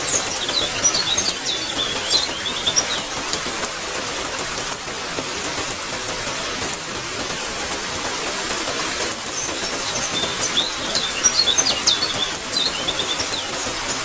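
Steady rain hiss with birds chirping: a run of short, high chirps in the first few seconds and another from about ten seconds in.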